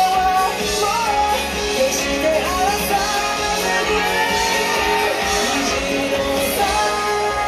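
Pop song with a singing voice played loud over a hall's sound system as the backing track for a dance routine.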